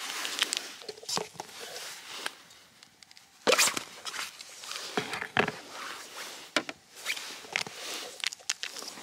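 Rustling of a puffy jacket and handling of camp gear: a drink packet, a plastic mug lid and a collapsible camp mug being picked up and set down, with a sharp knock about three and a half seconds in and more clicks and knocks after.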